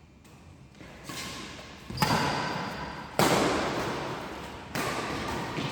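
Three sharp hits about a second apart, each ringing out in a long echo, as in a large hall.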